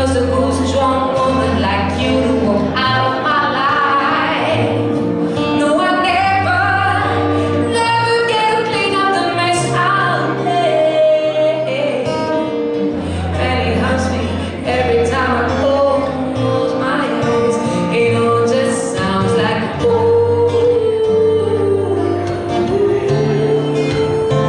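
A woman singing a ballad into a microphone, accompanied by acoustic guitar.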